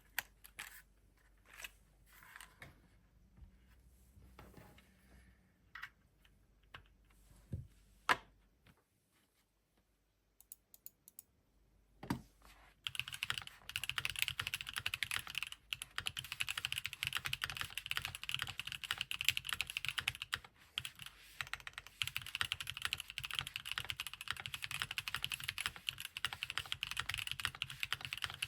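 Keychron Q5 mechanical keyboard with stock Gateron Luciola linear switches on an aluminium plate. A few scattered clicks and knocks come first, then steady, fast typing from a little before halfway in.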